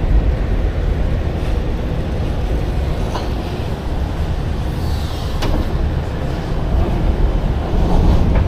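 Steady low rumble of a cargo van running, with a few light clicks and knocks.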